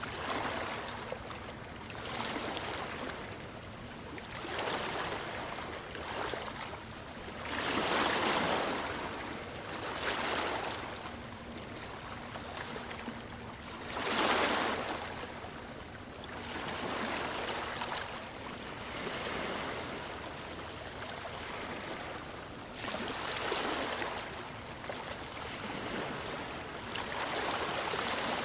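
Ocean waves breaking on a beach, the surf swelling and falling back every couple of seconds, with the biggest breakers about 8 and 14 seconds in.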